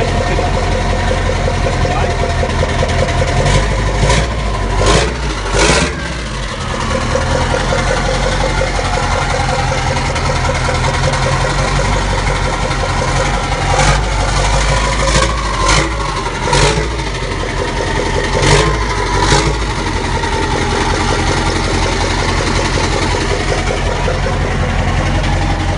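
Straight-piped Mack E9 V8 diesel of a Renault Magnum 560 idling just after a cold start, with short, sharp throttle blips around four to six seconds in and again between about fourteen and nineteen seconds.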